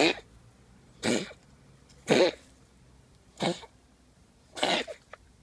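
Cat coughing during an asthma attack: five short, harsh coughs about a second apart.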